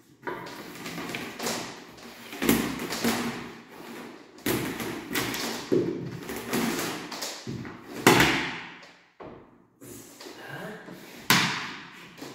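Handling noise from a furniture cabinet: an LED lamp's cable being threaded through a drilled hole in the back panel, with rustling and scraping and repeated knocks and thumps of hands and cable against the hollow panels. Two louder thumps come in the second half.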